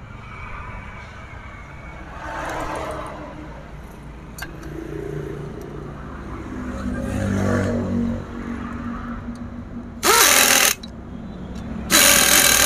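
Two short, loud bursts from a power tool, each under a second and about two seconds apart, tightening the chainsaw's muffler bolts. A low engine drone rises and falls in the background.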